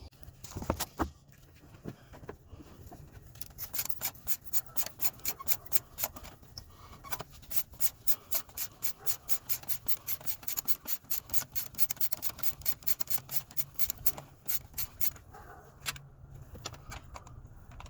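Quick, even scraping or rubbing strokes, about four a second, that start a few seconds in and stop shortly before the end, with a few scattered clicks before them.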